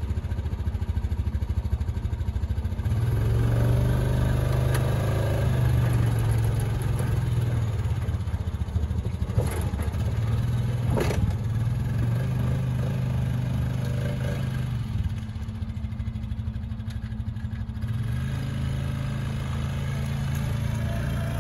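Honda ATV engine running and revving as the four-wheeler is backed down a trailer ramp and driven off. It gets louder about three seconds in, with two sharp knocks near the middle.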